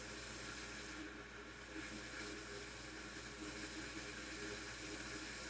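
Faint steady hiss with a low hum underneath; no distinct event stands out.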